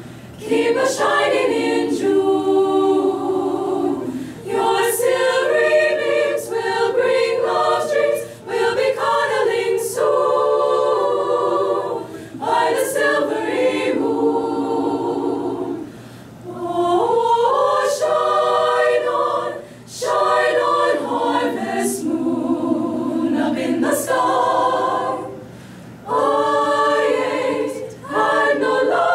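Mixed high-school choir singing unaccompanied, in sustained phrases broken by short pauses every few seconds.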